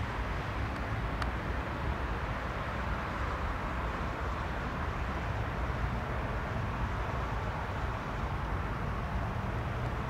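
Steady, unchanging drone of the Piper PA-46-350P's piston engine running at a distance, with no rise in pitch.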